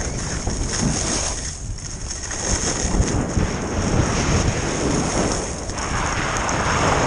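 Wind buffeting the microphone of a camera carried by a skier going downhill at speed, over the steady hiss of skis sliding on packed snow; the snow hiss swells about six seconds in.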